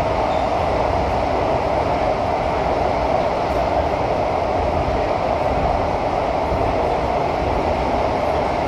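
Steady running noise inside a metro train's passenger cabin as it travels between stations: an even rumble with a strong mid-pitched hum.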